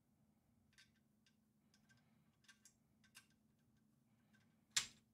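Faint, scattered plastic clicks and taps of keycaps being worked off and onto the switches of a Keychron Q3 Pro mechanical keyboard, with one sharper, louder click near the end, over a faint steady hum.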